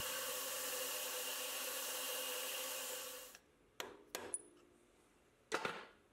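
CNC milling machine running with a steady hiss, cutting off about three and a half seconds in. Then come a few short scrapes and taps of a wooden stick against the freshly machined metal part.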